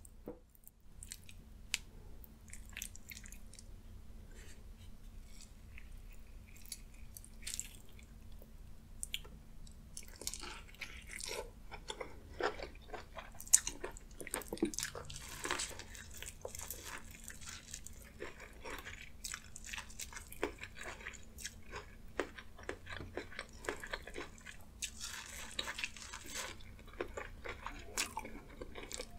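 A person chewing and biting a saucy meat stew: wet mouth clicks and smacks, growing denser and louder about a third of the way in.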